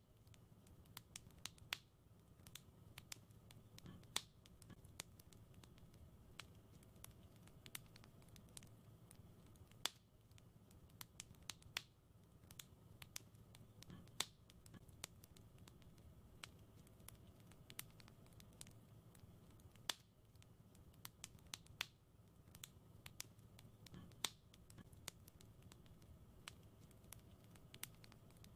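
Wood fire crackling in a fireplace: irregular sharp snaps and pops, a few louder ones every few seconds, over a steady low rush of the flames.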